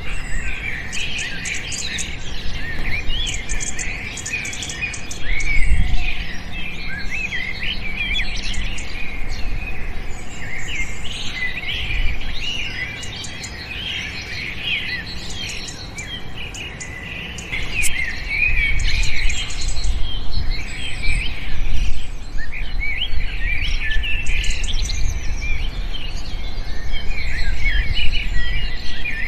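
A flock of small birds chirping at once, a dense chatter of short high chirps that overlap without pause. A low rumble runs underneath, heavier in the second half, with a couple of brief low thumps.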